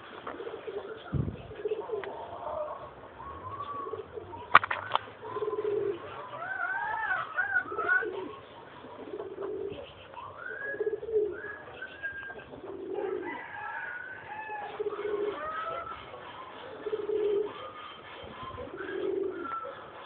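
Pigeons cooing over and over, low calls about once a second, with higher chirping calls in between. One sharp click about four and a half seconds in.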